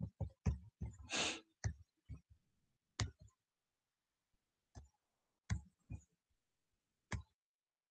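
A dozen or so scattered clicks and light knocks of a computer mouse and desk handling, picked up by a laptop microphone while video playback is being started, with a short soft breath about a second in.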